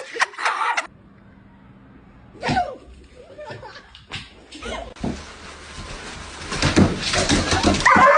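People laughing and exclaiming, broken by several abrupt cuts. The loudest stretch comes in the last couple of seconds.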